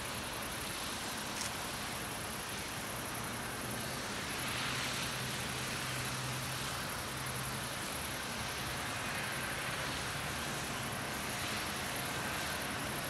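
Outdoor ambience with a steady distant engine drone that swells a little in the middle, over a thin high hiss.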